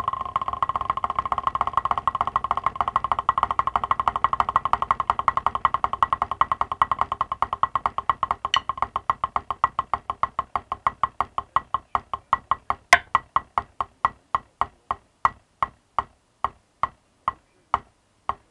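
Wooden drumsticks on a drum practice pad playing a mummy-daddy double-stroke roll, fast and dense at first, then gradually slowing over the second half until the strokes fall apart into separate, evenly spaced hits, about two or three a second near the end.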